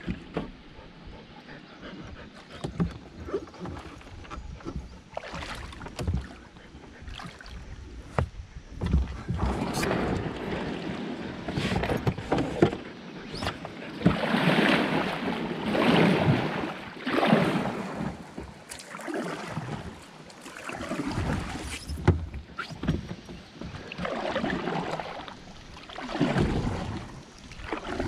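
Canoe paddle strokes in river water: a swish of water with each stroke, every second or two, with a few sharp knocks in between.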